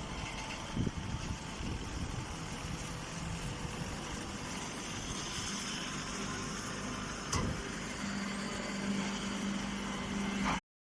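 Silage baler machine running: a steady mechanical drone with a couple of short knocks, a steadier low hum coming in near the end, then the sound cuts off abruptly.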